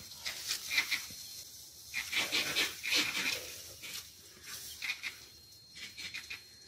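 Bursts of high-pitched, rapidly pulsed chattering calls from African wild dogs and a spotted hyena contesting a downed impala, the longest burst lasting about a second and a half.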